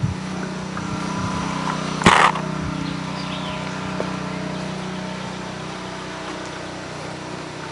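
Pressure washer engine running steadily at an unchanging pitch, with one short burst of hiss about two seconds in.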